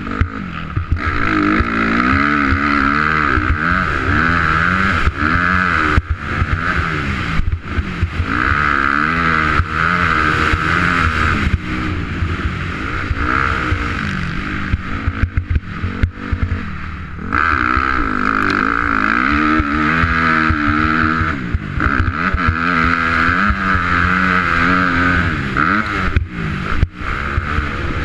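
2004 Honda CRF250R's single-cylinder four-stroke engine revving hard and rolling off again and again while riding a dirt motocross track, its pitch rising and falling through the gears, with short drops between pulls and a quieter, lower stretch about halfway through.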